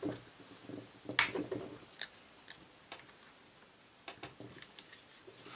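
Sharp click about a second in, then a few lighter clicks and a run of small ticks, as the backstrap retaining pin is pushed with the Glock tool into a Glock 35 Gen 4's polymer frame, through the fitted beavertail backstrap.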